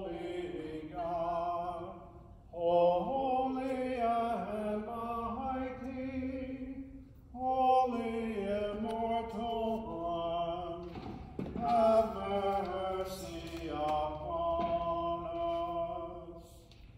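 Unaccompanied singing of a slow chanted hymn, in held phrases of a few seconds each with short breaks between them.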